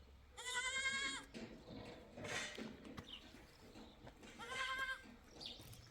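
Livestock bleating: two long, quavering bleats, one about half a second in and another around four and a half seconds, with fainter calls between them.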